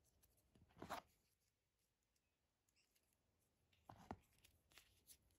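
Faint rustling and light clicks of fingers handling a black leather watch strap while fitting its metal spring bar, in two short bursts about a second in and about four seconds in, with a few soft ticks near the end.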